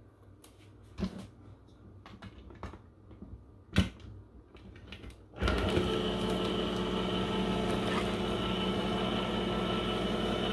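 Electric can opener: a few clicks and knocks as the can is fitted, one sharp click a little under four seconds in. About halfway through, its motor starts and runs with a steady hum as it cuts the can.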